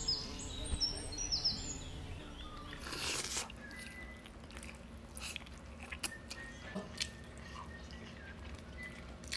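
Close-up eating sounds: a person biting into and chewing a braised chicken drumstick in sauce, with scattered wet mouth clicks and a louder bite about three seconds in. A few faint high chirps sound in the first second or so.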